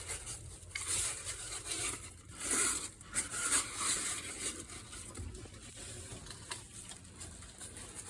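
Dry leaves rustling and crunching in irregular bursts as they are scooped out of an A/C condenser unit by gloved hand.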